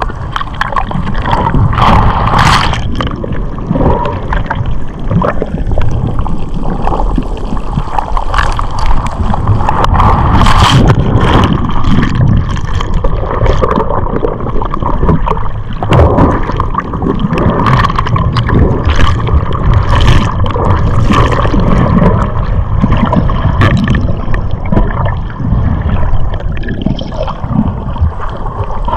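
Rough, surf-churned sea heard underwater: a loud, continuous rush and gurgle of turbulent water, broken by frequent sharp crackles and splashes.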